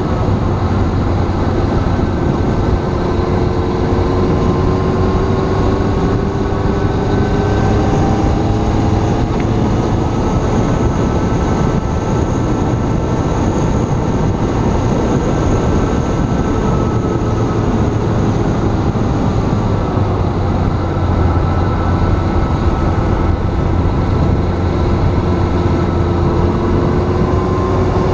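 Steady wind rush over an action camera on a moving road vehicle, with an engine note whose pitch slowly rises and falls with speed.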